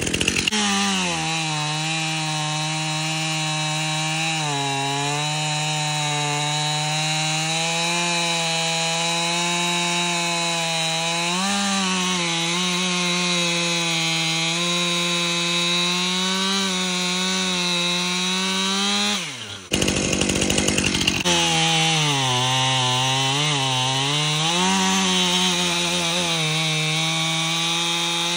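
Two-stroke gas chainsaws at full throttle cutting through a hardwood log, the engine note sagging and picking back up as the chain loads in the wood. About two-thirds through, the pitch drops away and the sound breaks off for about a second, then a saw is back in the cut.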